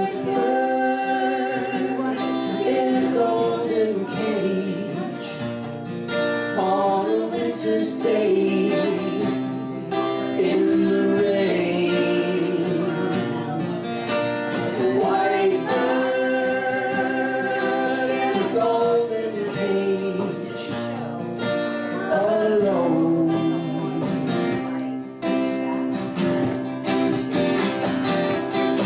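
Live band music: strummed acoustic guitar under singing, with long held, wavering melody notes.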